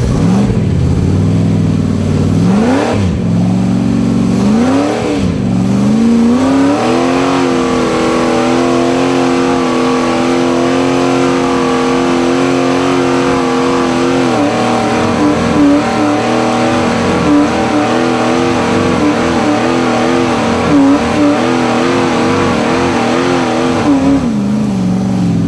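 Rock crawler's engine revved in two quick blips, then held at high revs with the tyres spinning on a rock ledge, the revs wavering as the rig bounces, and dropping back to idle near the end.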